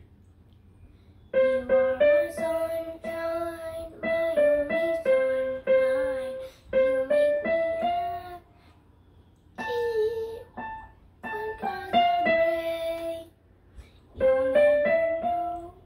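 Casio electronic keyboard played in a simple melody by a young boy, who sings along in a child's voice. The playing comes in three short phrases, starting about a second in, with brief pauses near the middle and toward the end.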